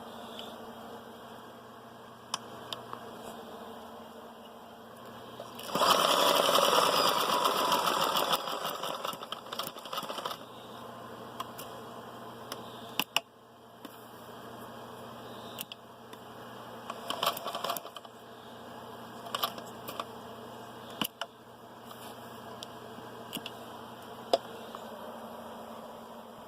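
Kenmore 158.10400 three-quarter-size sewing machine running steadily, with a much louder, denser stretch of stitching for about two seconds starting about six seconds in, tailing off over the next two seconds. Scattered sharp clicks follow.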